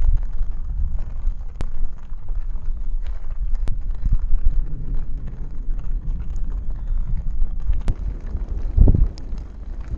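Thunder rumbling low and unevenly, with scattered raindrop ticks. A stronger low boom comes near the end.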